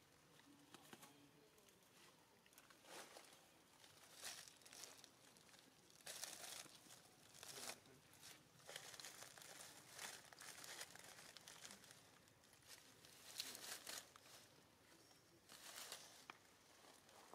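Faint, irregular wet crunching and smacking of a macaque biting and chewing ripe mango flesh, with tearing as pieces come away.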